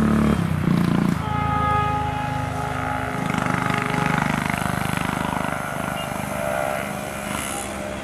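Horn of an EMD GT46PAC (WDP-4) diesel locomotive sounding in the distance over the rumble of its train moving away, growing a little fainter near the end.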